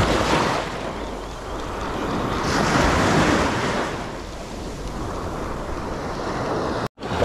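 Surf washing onto the beach, swelling twice, with wind buffeting the microphone. The sound cuts out for an instant near the end.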